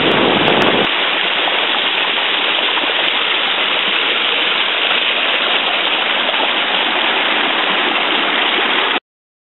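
Water running over travertine terraces, a steady rushing hiss. It cuts off abruptly near the end.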